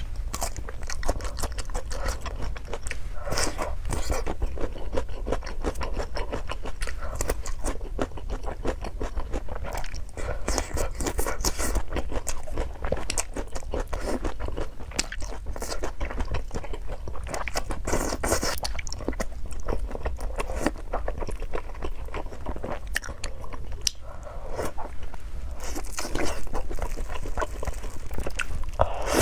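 Close-miked eating: crunchy food being bitten and chewed, with dense crisp crackling throughout and louder bursts of crunching every several seconds.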